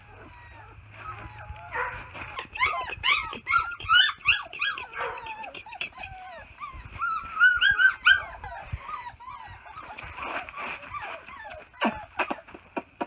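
Young puppies whining and yelping: a rapid string of short, high-pitched cries that rise and fall, densest in the middle, followed by a few sharp clicks near the end.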